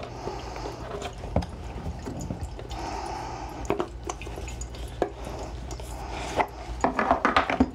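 A tight-fitting cardboard product box being handled and opened by hand: taps, scrapes and short sliding hisses as the lid is worked off, with a dense run of quick clicks and taps near the end. A small tabletop water fountain trickles steadily underneath.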